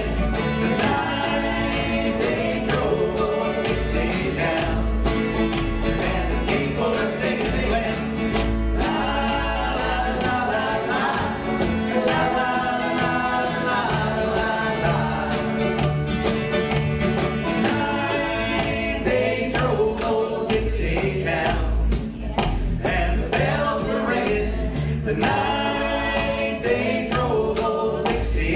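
Small acoustic folk band playing live: strummed acoustic guitars and an upright double bass keep a steady beat under sung verses.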